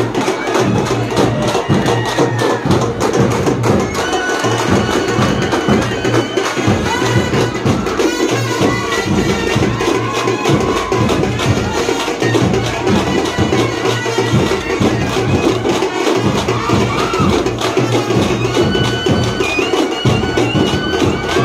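Loud traditional band music: fast, dense drumming with a shrill wind instrument playing a wavering melody on top.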